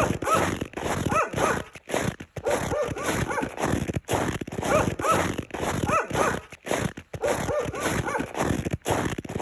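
Footsteps crunching through snow, one after another, each step giving a short pitched squeak along with the crunch.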